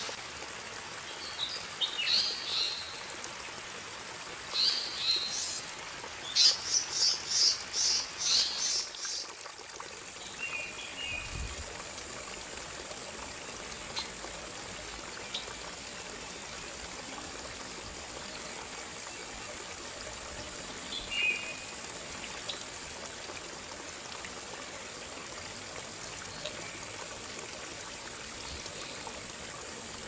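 Woodland ambience: a steady water-like rushing under a constant high, thin insect drone, with short bird chirps. The chirps come in a quick run about a third of the way in, and a few single faint calls follow later.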